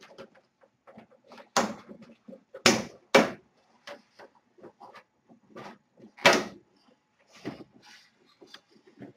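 Plastic back panel of a Samsung LN40A330 LCD TV being worked loose and lifted off the chassis: a string of sharp plastic clacks and knocks, four of them loud, with lighter rattling and rubbing between.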